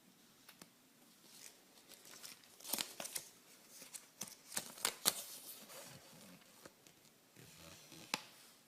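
Wrapping or packaging being torn open and crinkled by hand: a run of quick crackles and clicks in the middle, then one sharp click near the end.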